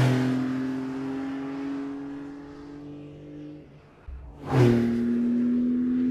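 Porsche 911 Turbo S twin-turbo 3.8-litre flat-six passing close by under power. Its exhaust note comes in suddenly, then fades and sinks slightly in pitch as the car pulls away. About four and a half seconds in, a second loud pass begins and holds a steady engine note.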